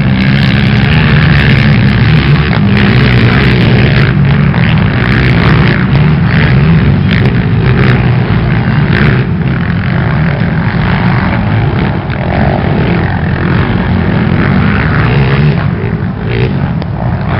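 Open-class racing ATV engines running loud and steady.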